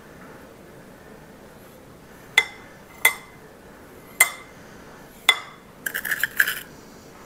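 A metal spoon clinking against ceramic ramekins while spreading sugar over crème brûlée custards. Four single ringing clinks come about a second apart, then a quick run of rapid clinks near the end.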